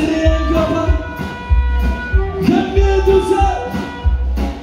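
A live band playing a rock-blues number. An amplified harmonica, cupped against a microphone, holds and bends long notes over electric guitar, with a steady kick-drum and cymbal beat.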